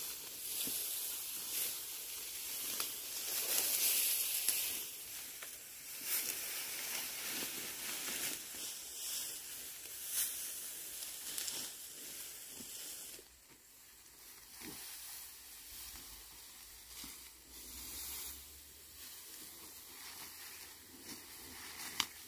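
Dry rice plants rustling and crackling as stalks and leaves are handled, in irregular bursts. It grows quieter about halfway through.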